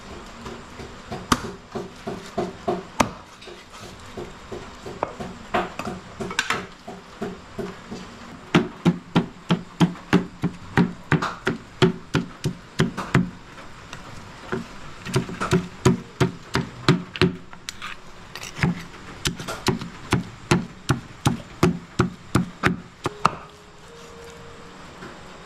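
Meat cleaver chopping whole chickens into bone-in pieces on a round wooden chopping board: runs of sharp, regular strikes, about two to three a second, broken by short pauses.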